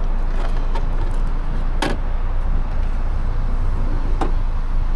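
Steady low rumble of a 2012 Audi Q5 idling, with a few sharp clicks as the camera and trim are handled, the loudest just under two seconds in.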